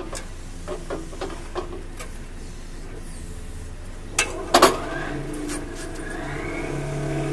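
Excavator-mounted vibro hammer on a pile: scattered knocks and clanks, two loud bangs about four seconds in, then a steady low drone that sets in and grows louder, heard from inside a car.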